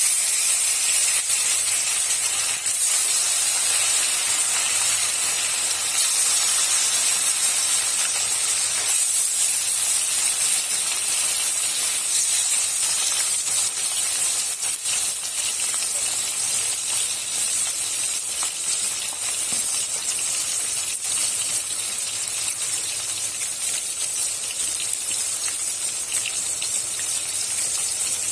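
Pieces of katla fish frying in hot oil in a kadai: a loud, steady sizzle with fine crackling spatter, easing slightly toward the end.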